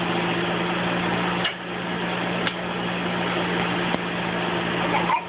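Eggs sizzling on an electric griddle over a steady low appliance hum, with a few light clicks of a metal spatula scraping and tapping the griddle.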